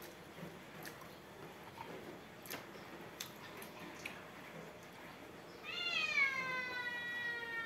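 A cat meowing once near the end: one long call that starts high and slides a little lower, held for about two seconds. Before it, only a few faint clicks.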